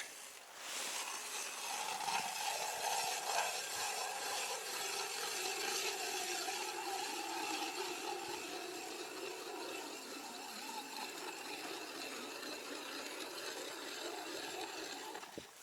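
Ice auger drilling a hole through river ice: a steady grinding whir with a noisy scrape on top, dropping slightly in pitch midway through and stopping just before the end.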